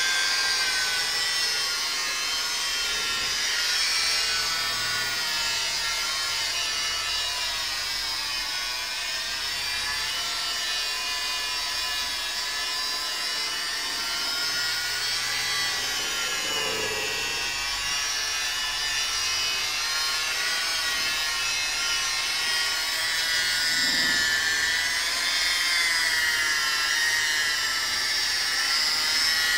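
Corded rotary car polisher running steadily against door paint, its motor whining with a pitch that rises and falls slightly.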